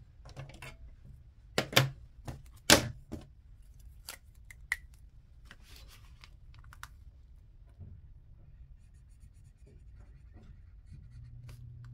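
Several sharp clicks and knocks of a plastic binder and a marker being handled, the loudest about three seconds in, then the faint scratching of a felt-tip marker colouring in on paper. A low steady hum comes in near the end.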